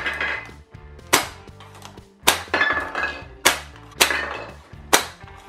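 Avalanche toy game's pull-and-shoot launcher fired rapidly, its tethered foam ball smacking into the hollow plastic ice-block tower. About six sharp plastic clacks come roughly once a second, each with a brief rattle, as blocks are knocked loose.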